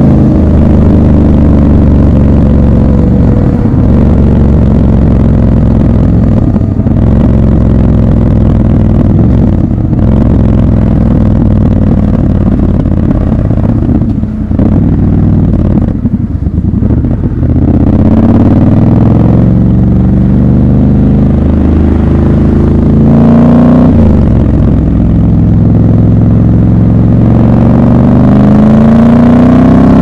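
Triumph Scrambler 1200 XC's 1200 cc parallel-twin engine running as the bike cruises, then easing off to a low, uneven note about halfway through. In the second half it accelerates several times, its pitch rising and then dropping back at each gear change.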